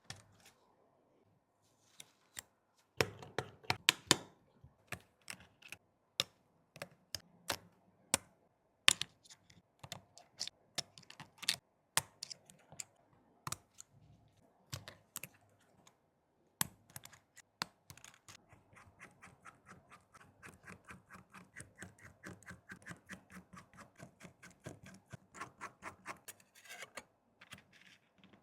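Small tools clicking, tapping and scraping on a phone's body as it is worked on by hand. In the second half this turns into a fast, even run of light clicks, about three to four a second.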